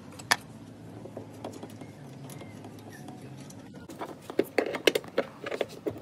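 Hands working on the plastic cowl panel and wiper area under a car's hood: a single sharp click near the start, then a quick run of clicks and knocks in the last two seconds.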